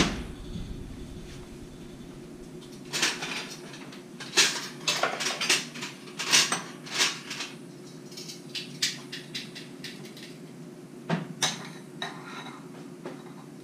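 Metal serving utensils and cutlery clinking and scraping against dishes as food is served. The sharp clinks come in a busy cluster from about three to seven seconds in and again near the end, over a steady low hum.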